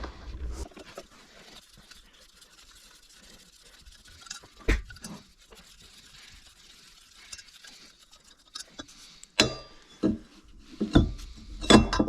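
Hand tools and metal parts clinking and knocking as they are handled during engine repair work: an isolated knock, then a cluster of sharp, ringing clinks near the end.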